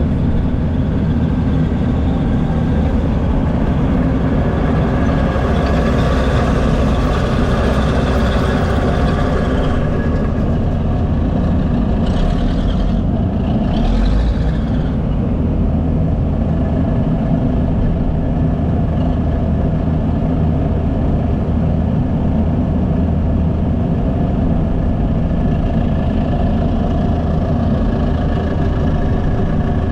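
Heavy earthmoving machinery's diesel engines running steadily, with a brief rushing noise about halfway through.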